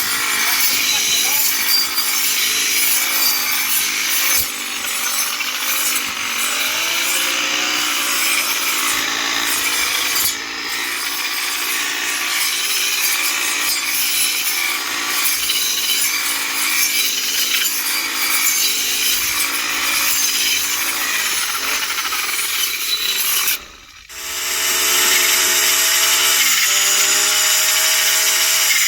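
Engine-driven grass cutting machine running while cutting green grass: a steady engine note under a continuous rasping cutting noise. About three-quarters through the sound drops out for a moment, then the engine carries on with a steadier, more even note.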